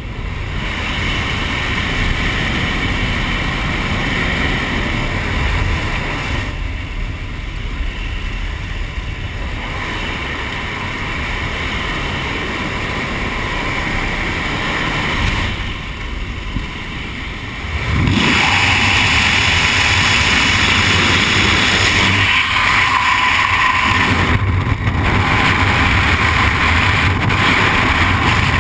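Steady rumble of a Cessna Caravan's turboprop engine and wind through the open jump door in the cabin. About two-thirds of the way in it changes suddenly to a louder, even rush of freefall wind over the helmet-camera microphone.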